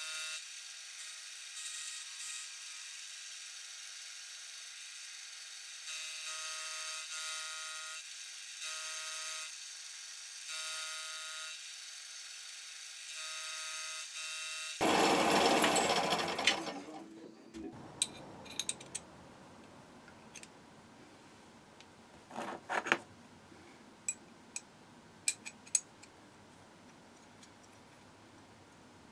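Milling machine end mill cutting a brass crosshead: a steady whine made of several tones, swelling and easing every second or two. About halfway through comes a short loud rush of noise, then scattered light metallic clicks and clinks as the steel guide rails and crosshead are handled.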